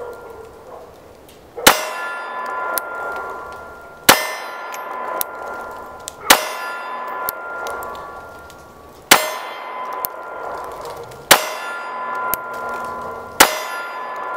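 Springfield Armory XDS 9mm pistol fired six times at a steel target, a shot about every two seconds. Each shot is followed by the steel plate ringing and fading.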